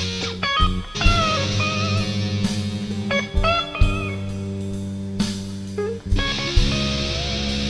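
Electric guitar playing bluesy single-note lead lines with string bends, over a blues-rock backing with bass and drums.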